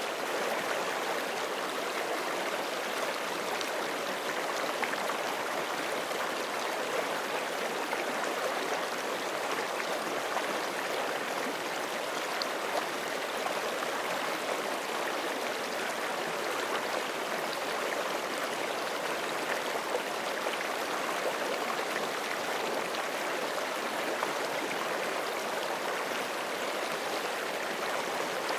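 A forest creek running over rocks, a steady rush of flowing water with small gurgles and splashes.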